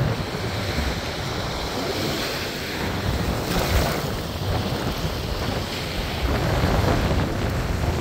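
Strong, near typhoon-force wind blowing across the microphone with a heavy low rumble, over high sea waves breaking and washing.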